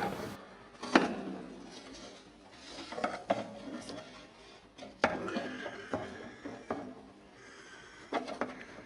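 Scattered metal clinks and knocks with faint scraping: a screwdriver pushing and prying at the clamp that holds the handbrake cable sheath under a car.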